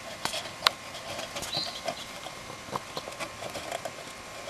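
Light metal clicks and scrapes as a 1/4-20 nut is turned and tightened by hand inside a soldered copper can. There is one sharper click under a second in and a short high squeak about a second and a half in.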